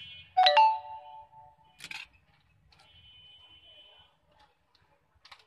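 Metal hand tools clink down on the workbench: two sharp strikes about half a second in that ring briefly, then a single lighter click and another near the end.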